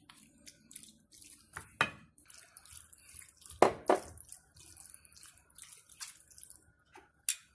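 Wooden spatula stirring a thick, wet chicken and liver-spread mixture in a pan: wet squelching and scraping, broken by a few sharp knocks of utensil on pan, the loudest about halfway through.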